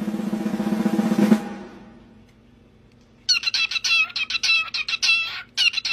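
Music with drums fades out about a second and a half in. After a short pause, a cockatiel calls in two bursts of quick, high chirps.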